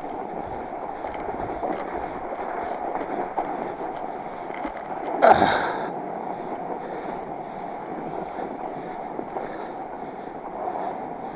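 Fat bike's wide knobby tires rolling and crunching over fresh snow, a steady noise of tire and frame heard close up at the handlebars. About five seconds in there is one brief, louder scrape with a short squeak.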